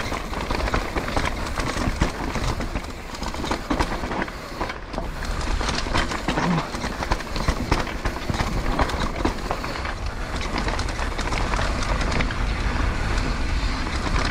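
Santa Cruz V10 downhill mountain bike clattering at speed over a rocky dirt trail: tyres crunching over stones and the frame and parts rattling with a continuous run of knocks, over a steady low wind rumble on the microphone.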